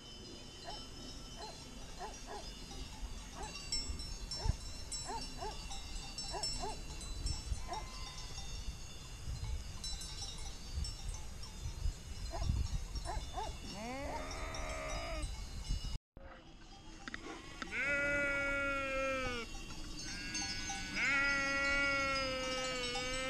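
Sheep bleating: one short bleat past the middle, then two long bleats near the end, over a steady light tinkling of sheep bells.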